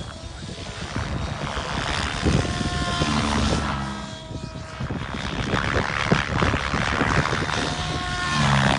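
Large RC helicopter flying aerobatics: the rotor blades whooshing and the drivetrain whining, rising and falling in pitch as the helicopter is thrown through manoeuvres, with a dip near the middle.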